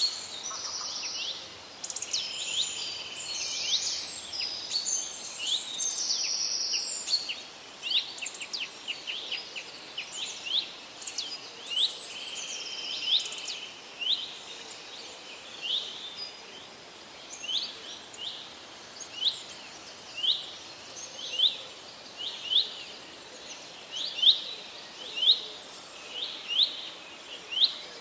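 Birds chirping: a dense mix of overlapping calls in the first half, then from about halfway a single short, rising chirp repeated roughly once a second.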